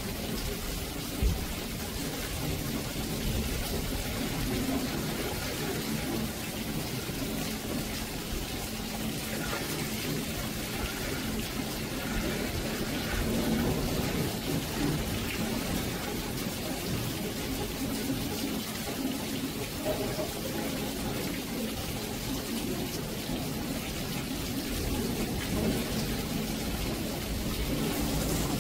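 Steady monsoon downpour falling on a yard, its plants, pots and cinder blocks, with a low rumble beneath it throughout. A single sharp knock about a second in.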